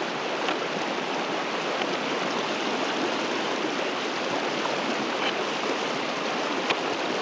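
Fast, cold river water rushing steadily over rocks at a wading crossing, with a light knock near the end.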